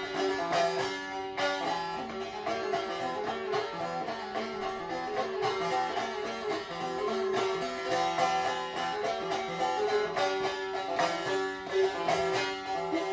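Instrumental passage of a Turkish folk song on a plucked string instrument: quick, densely picked notes over a steady sustained note, with no voice.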